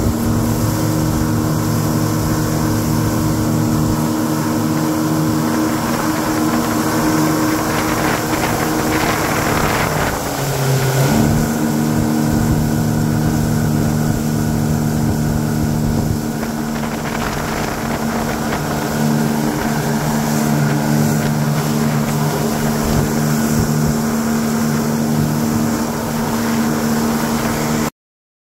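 Motorboat engine running steadily, with wind on the microphone. Its note dips and shifts about ten seconds in, then holds steady again, and the sound cuts off abruptly near the end.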